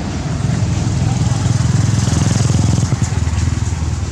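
A small engine running steadily with a fast, low, even throb.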